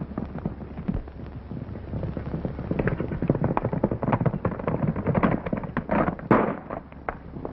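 Horses galloping, rapid hoofbeats, with gunshots fired during the chase; the loudest shot comes about six seconds in. Old film soundtrack with a muffled top end.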